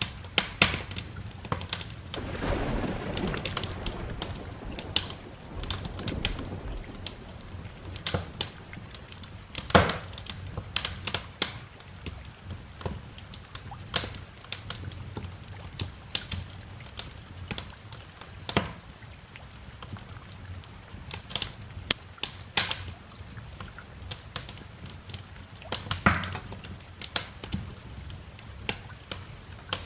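Wood fire crackling with frequent sharp, irregular pops over a steady hiss of rain. A low rumble of thunder swells and fades about two to five seconds in.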